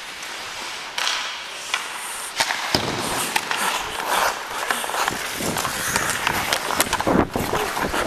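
Ice skate blades scraping and carving on the ice during play, with scattered sharp clicks of sticks and puck; the scraping gets louder about a third of the way in.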